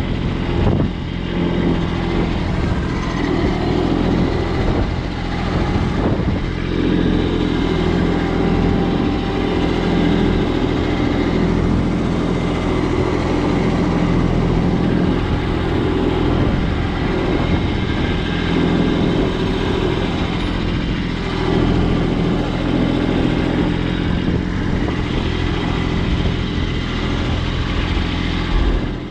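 Vehicle engine running at a steady speed with a low, even drone, cutting off abruptly at the end.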